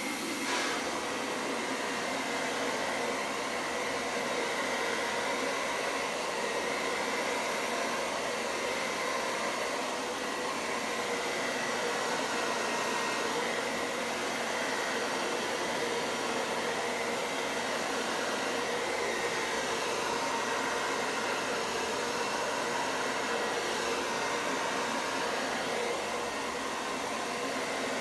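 Hair dryer running steadily on its cool, medium setting, an even whooshing blow with a faint whine.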